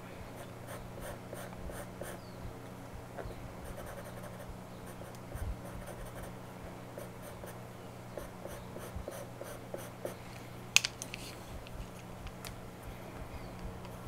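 Pastel pencil scratching and dabbing on pastel paper in short, repeated strokes, with one sharper tap about three-quarters of the way through.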